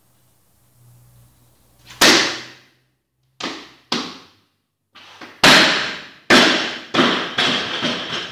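A 110 kg barbell loaded with black plates, jerked from behind the neck and then dropped from overhead onto the lifting platform. There is a sharp clank about two seconds in as the bar is driven up, two lighter knocks a little later, then a heavy crash near the middle as the bar lands, with three more bounces and a rattling ring of plates and bar that dies away near the end.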